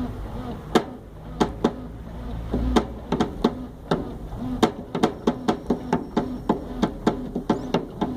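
Sharp percussive hits played by hand in rhythm with a running washing machine, whose short low tone repeats about every 0.7 s. The hits are sparse at first and settle into a steady, quicker beat about halfway through.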